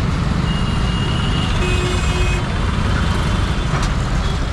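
Road traffic heard from a two-wheeler in slow city traffic: a steady low rumble of engines and road noise, with a faint thin high beeping tone in the first half.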